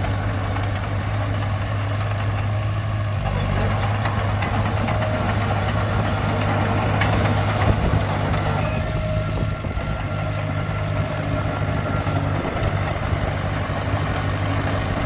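Heavy construction machine's diesel engine running steadily, with a few faint clicks about halfway through.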